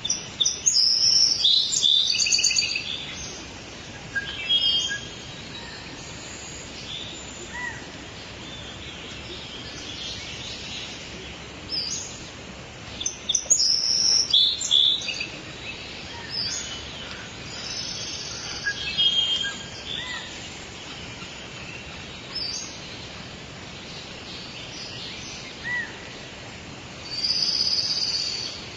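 Several songbirds singing and chirping in bursts of high trills and whistles over a steady background hiss. The loudest bursts of song come at the start, around the middle and near the end.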